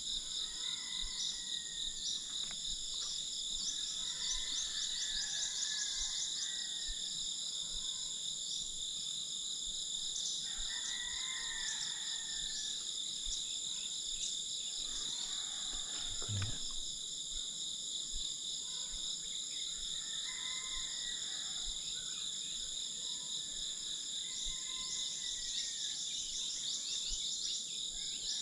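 Outdoor insect chorus: a steady, high-pitched, layered drone of crickets or similar insects, with bouts of rapid ticking trills a few seconds in and again near the end, and fainter lower calls coming and going.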